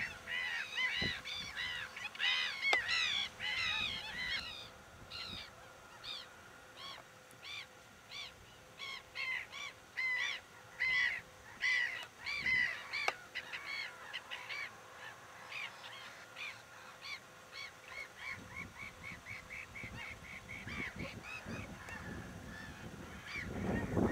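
Whooper swans calling over and over, their honking calls overlapping thickly at first, then spaced out, then running on as a quicker string of softer calls. A low rumble builds near the end.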